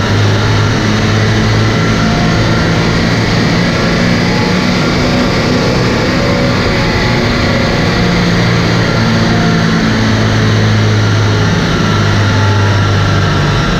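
Volkswagen Passat 2.0 TDI common-rail four-cylinder turbo diesel running on a rolling-road dyno, the engine together with the tyres spinning the rollers making a loud, steady drone.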